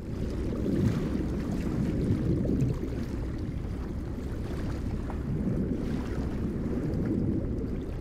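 Underwater water ambience: a deep, muffled, steady rush of moving water, starting abruptly.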